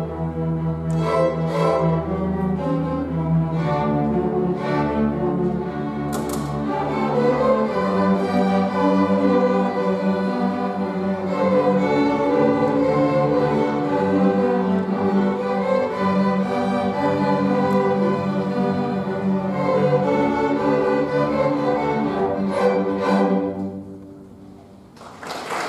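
A school string orchestra of violins, cellos and double bass plays the fast closing bars of a piece, ending on a few sharp accented chords. After a brief quiet, applause begins about a second before the end.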